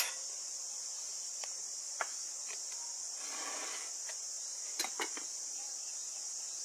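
Steady high-pitched chorus of insects, with a few light clicks and taps and a short rustle about halfway through.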